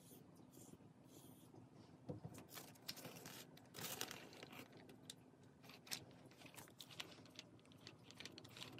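Quiet crackling and tearing of a sticky lint roller sheet being peeled off, loudest about four seconds in, among scattered soft clicks and rustles.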